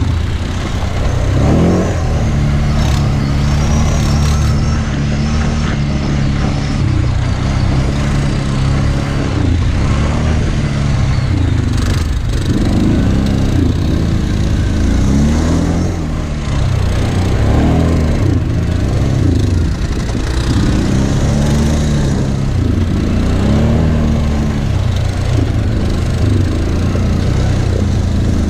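Kawasaki Brute Force 750 ATV's V-twin engine running under way, its note rising and falling every second or two as the throttle is opened and closed, more often in the second half.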